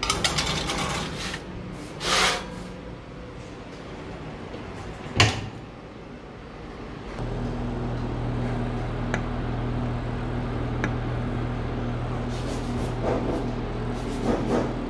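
A metal baking tray slid onto a convection oven's rack, then the oven door shut with one sharp knock about five seconds in. About two seconds later the oven's fan motor starts and runs with a steady low hum.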